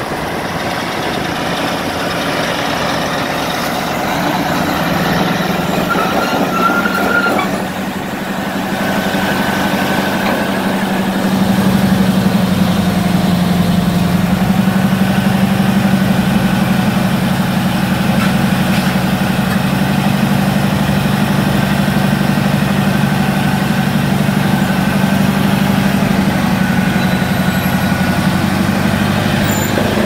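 Caterpillar D9N bulldozer's diesel engine running steadily. Its note steps up about a third of the way in and then holds louder and steady.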